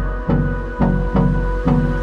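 Background music with a steady beat, a strong low note about twice a second.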